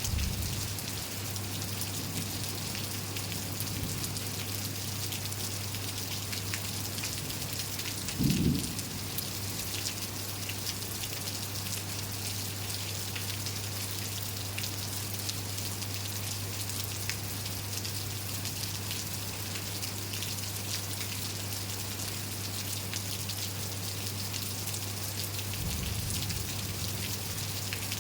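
Steady rain falling and pattering on surfaces, with many fine drop ticks over a steady low hum. A brief low thump about eight seconds in.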